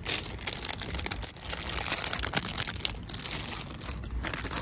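Plastic instant ramen packets crinkling irregularly as they are picked up and handled.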